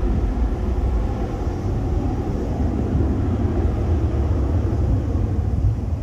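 Twin-engine jet airliner, a Solaseed Air Boeing 737-800, climbing away after takeoff, its engines at climb power making a steady deep rumble.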